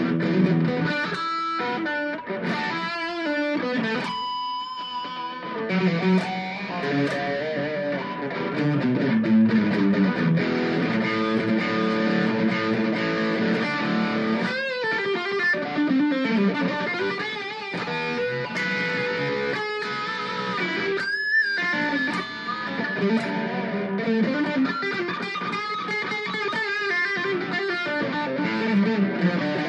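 Ibanez Gio electric guitar with a Tokai pickup set, played through an amp with a distorted tone: held chords and single-note lines with string bends and vibrato.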